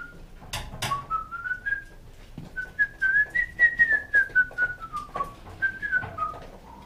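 A man whistling a tune, the notes climbing to a high point about halfway through and then stepping back down, with a couple of sharp clicks about half a second in.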